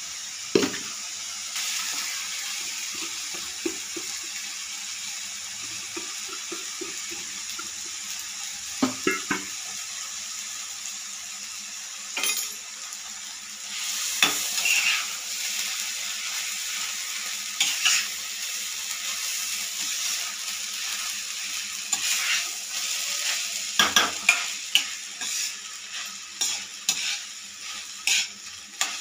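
Coriander paste and cooked rice sizzling in oil in a kadai while a metal ladle stirs them, scraping and knocking against the pan, the knocks coming more often in the second half.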